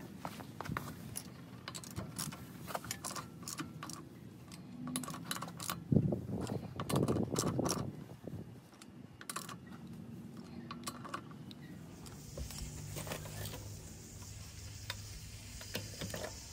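Hand ratchet and socket working wheel lug nuts: irregular metallic clicks and clinks of the tool, with a louder clatter of knocks about six to eight seconds in.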